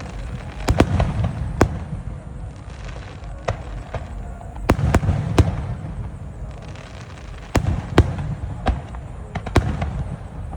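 Star mine fireworks barrage: about ten sharp bangs of aerial shells bursting at uneven intervals, some in quick pairs, over a continuous low rumble.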